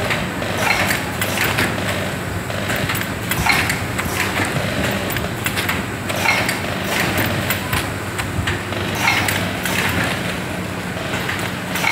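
Vertical pouch packing machine with a pneumatic cup filler running: a steady machine hum with a sharp knock repeating roughly every second as it cycles.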